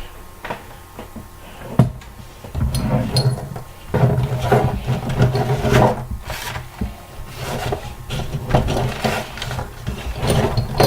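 Handling noises close to the microphone: irregular rubbing, rustling and small knocks as items are rummaged through and picked up.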